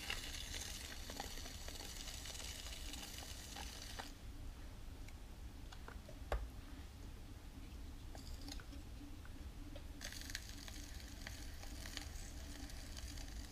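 A flat rib pressed against the wall of a wet clay cylinder on a spinning potter's wheel, making a soft, even scraping hiss. The hiss stops about four seconds in and returns about ten seconds in, over a steady low rumble, with a few faint clicks in between.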